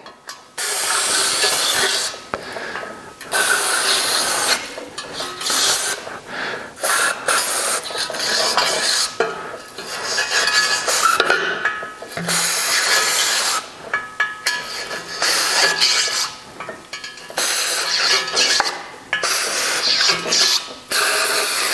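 Nylon bottle brush scrubbing in and out of the oil-gallery holes of an air-cooled Porsche engine crankcase, mixed with short sprays of solvent from an aerosol can. The sound comes in repeated strokes of a second or two each, with short pauses between.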